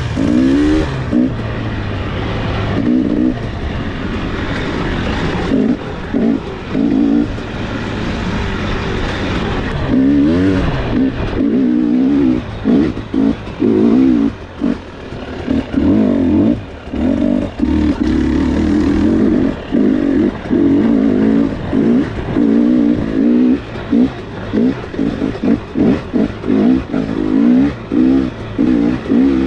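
Dirt bike engine under trail riding, heard from the bike itself. The note rises and falls as the throttle is worked, then cuts in and out again and again in quick blips through the second half.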